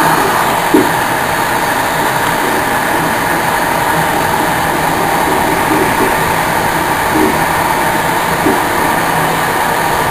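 InterCity passenger train running at speed, heard from inside its rear carriage: a steady rumble and hiss of the rolling stock, with a few short knocks at irregular intervals.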